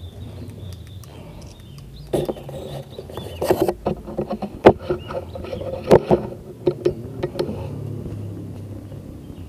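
Irregular sharp knocks and clicks, loudest about halfway through, over a steady low hum.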